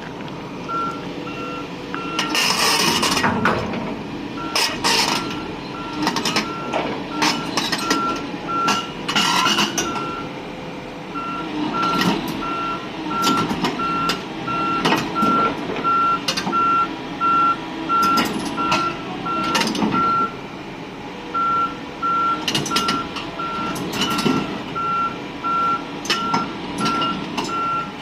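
Volvo excavator's travel alarm beeping about twice a second, pausing briefly twice, over the running machine, with repeated sharp metal clanks.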